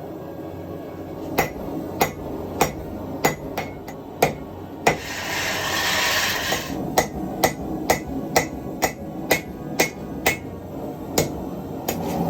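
Blacksmith's hammer striking metal on an anvil in a steady run of blows, about two a second. About five seconds in the blows pause for a short hiss, then resume.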